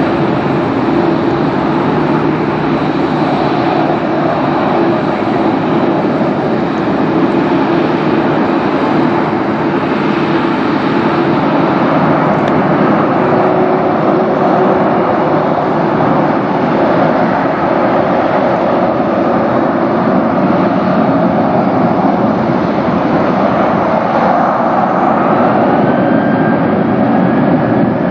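Boeing 737-700 jet engines (CFM56-7B) running at taxi thrust, a steady loud jet noise with a faint rising whine near the end.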